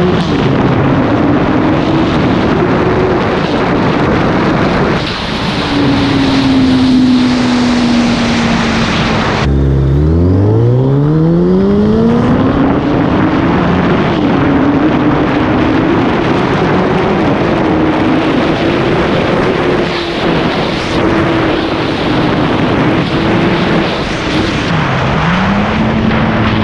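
Suzuki Hayabusa inline-four engine pulling hard at speed under heavy wind rush. About nine and a half seconds in the sound changes abruptly and the engine note climbs steeply from low revs in a hard acceleration, then holds high; near the end the pitch dips and climbs again quickly, as at a gear change.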